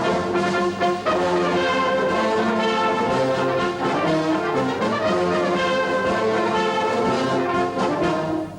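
Brass band music: sustained chords from trombones, trumpets and horns, changing every second or so.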